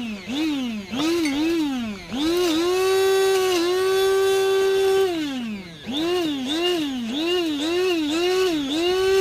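Braun grinder's small electric motor pulsed on and off, about two pulses a second: each time the whine rises quickly and sinks as the motor coasts down. It breaks into a steady full-speed whine for a few seconds after about two seconds and again near the end. The motor spins freely again after its seized sleeve bearing was loosened with oil.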